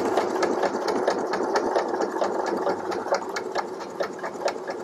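Pfaff Ambition 610 computerized sewing machine stitching steadily through a thick stack of denim, cotton and stretch fabric. Its motor runs under an even, rapid ticking of needle strokes.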